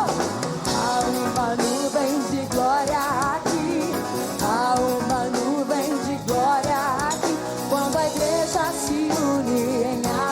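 Gospel worship song: a woman singing wavering, ornamented runs over a band with drums and guitar.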